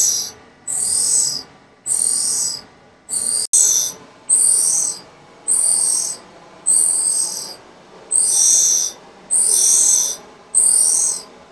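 Grinding wheel of a K.O. Lee tool and cutter grinder grinding relief on a drill bit turned in a Hybco cam-relieving fixture: a high hissing grind that comes in regular bursts a little over a second apart, each lasting under a second, as the wheel cuts and then clears the bit.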